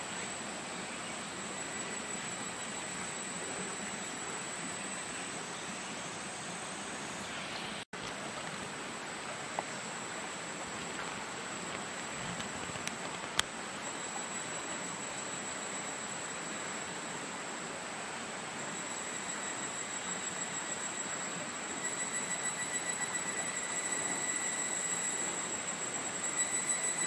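Steady woodland ambience: an even hiss with thin, high steady tones over it, one of which pulses and grows louder near the end. A brief dropout about eight seconds in and a few faint clicks.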